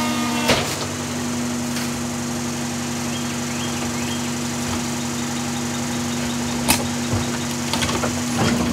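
Heil DuraPack 5000 rear-loader garbage truck running steadily with a held hydraulic hum as its cart tipper lifts and tips a wheeled trash cart into the hopper. There is a sharp knock about half a second in and another about two-thirds of the way through, from the cart hitting the tipper and the body.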